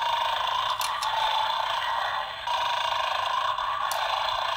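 Light clicks and scrapes of hard plastic as the Don't Take Bandit's Bones dog toy and its bone bowl are handled: a couple about a second in and one near the end. They come over a steady, wavering high hum.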